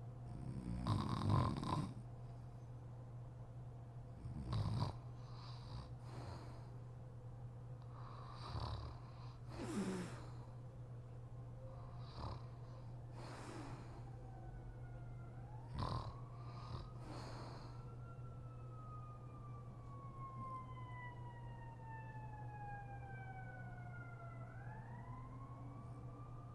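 A sleeping woman snoring irregularly, with separate snores and snorts, the loudest about a second in, over a steady low hum. In the second half a distant siren wails, falling slowly in pitch and then rising again near the end.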